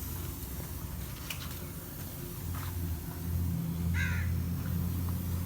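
A bird gives one short call about four seconds in, over a low steady hum that grows louder partway through.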